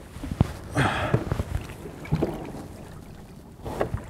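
Water splashing as a large northern pike is lowered over the side of a boat and released, with a few sharp knocks against the hull.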